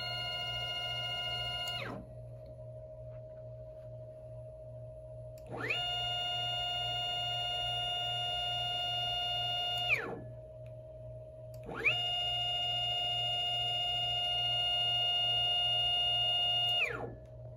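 NEMA 23 stepper motor whining through a series of moves: each time the pitch climbs quickly as it speeds up, holds steady at speed, then falls as it slows to a stop. One run ends about two seconds in, and two more follow, each about four to five seconds long. Between runs only a faint steady tone and a low hum remain.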